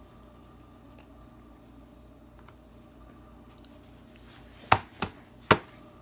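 A baby eating soft yellow fruit from her hands, with faint wet chewing and mouthing sounds. Near the end come three sharp, loud smacks in quick succession.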